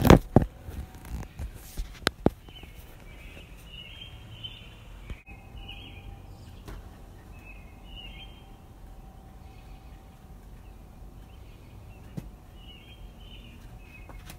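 A few sharp knocks in the first couple of seconds, a wooden spatula against a glass mixing bowl, then birds chirping in short high calls at intervals over a faint steady hum.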